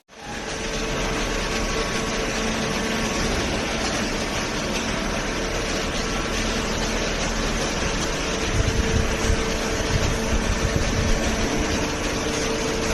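Hydraulic cardboard baler's motor and pump running steadily, with a few low thumps between about eight and eleven seconds in.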